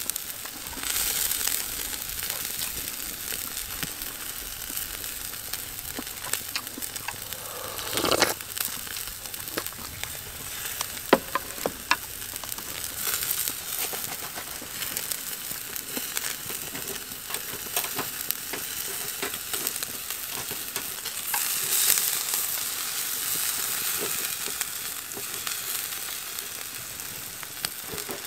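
Food sizzling on a charcoal grill, a steady frying hiss broken by a few sharp clicks and a brief louder swell.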